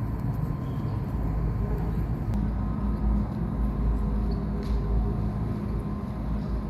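Steady low rumble with a faint constant hum, the background noise of a large indoor hall, with a couple of faint clicks.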